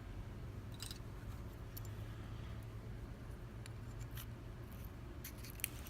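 Faint, scattered small metallic clicks of an Abus e90 euro cylinder's parts being handled during gutting, with a quick cluster of clicks near the end, over a low steady hum.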